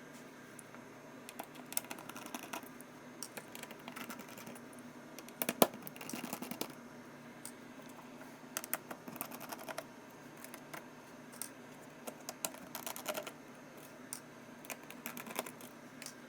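Light scattered clicks and taps of small tools and plastic parts as a laptop's battery is loosened and lifted out of the chassis, with one sharper click about five and a half seconds in.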